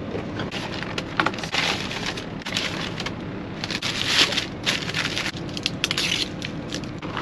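Paper food wrappers and a paper takeout bag rustling and crinkling in irregular bursts as a fast-food meal is unwrapped and spread out, over a steady low hum.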